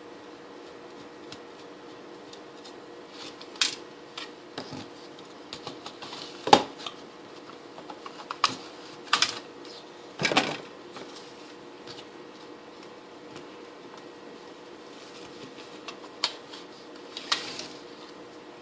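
Hard drive and its metal drive tray being handled and fitted together: scattered clicks and clacks, loudest about six and a half and ten seconds in, over a steady machine hum.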